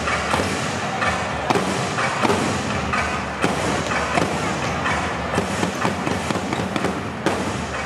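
Dense, echoing arena crowd noise with many irregular sharp claps and knocks.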